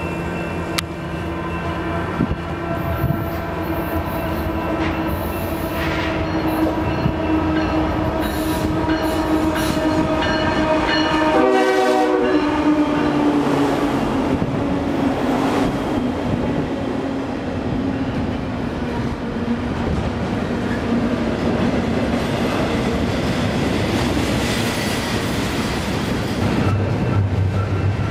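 Union Pacific freight train approaching and passing at speed, its horn chord held long and steady, then dropping in pitch as the lead diesel locomotives go by about twelve seconds in and fading. After that come the rumble and clatter of double-stack container cars rolling past.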